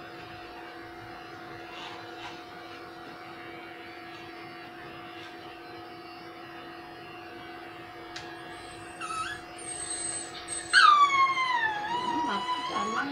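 Electric pet clipper running with a steady hum while a small dog's leg is trimmed. From about eight seconds in the dog starts whining, and near the end it gives long, high cries that fall in pitch, the loudest sound here: the dog dislikes the clipping.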